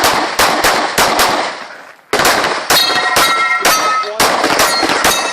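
Pistol shots fired in fast strings, two strings about a second apart, with steel targets ringing after several of the hits.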